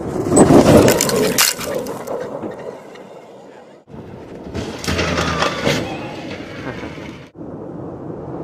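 Electric off-road race car driving over rough ground: a crunching, rattling noise that cuts off abruptly about four seconds in and again near the end.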